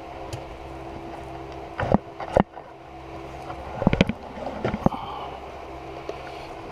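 Metal clicks and knocks from handling motorcycle rear shock absorber parts during reassembly, sharpest about two seconds in and again about four seconds in, over a steady low hum.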